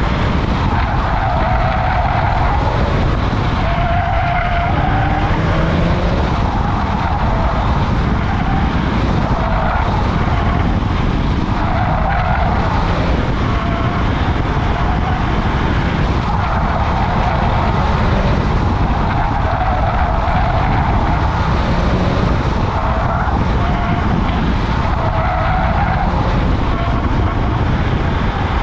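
BMW driven hard around a track course, heard from a camera mounted outside on the door: constant heavy wind buffeting and road rumble, with the tires squealing again and again through the corners.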